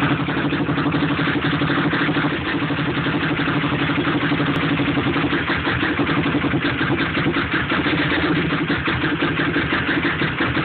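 Yamaha YFZ450 quad's single-cylinder four-stroke engine idling steadily on its first run after a top-end rebuild.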